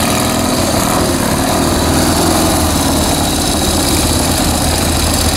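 Engine running steadily, an even low hum with no change in speed.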